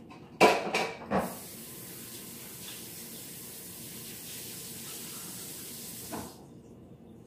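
Kitchen sink tap running steadily for about five seconds for washing up. It is preceded by a few loud clatters and ends with a knock as the water stops.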